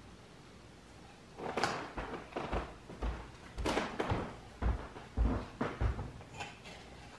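Kitchen handling clatter: a run of short knocks and clicks with several dull thumps, starting about a second and a half in, like utensils and cupboard or drawer doors being handled.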